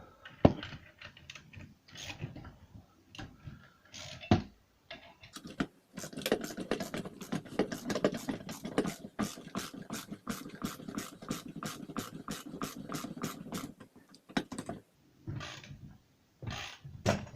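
Rapid metallic clicking as a puller's forcing screw is wound in with a hand tool, drawing a main gear bearing off its shaft in a Puch E50 moped gearbox. There are a couple of sharp clicks first, then a long fast run of clicks for about eight seconds, then a few scattered clicks near the end.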